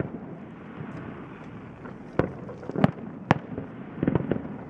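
Fireworks display: three sharp bangs of shells bursting a bit after two seconds in, then a quick run of crackling pops near the end.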